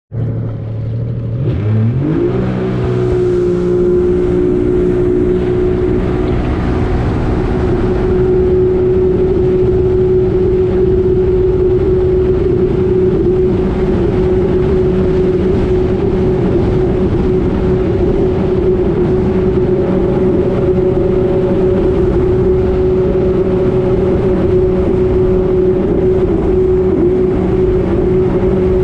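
Jet ski engine rising in pitch from a low idle about two seconds in, then running at a steady high drone at speed over a constant rush of noise.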